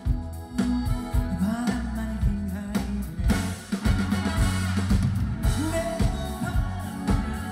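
Live pop band music with drum kit, bass and guitar, and a voice singing over it.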